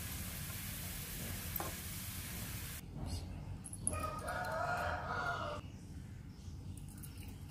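Chopped garlic sizzling in hot frying oil, cut off abruptly about three seconds in. Then a single sharp click, and a rooster crows once for about a second and a half.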